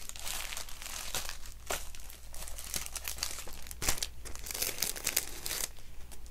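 Paper sticker sheets rustling and crinkling as they are handled and leafed through by hand, with irregular crackles throughout.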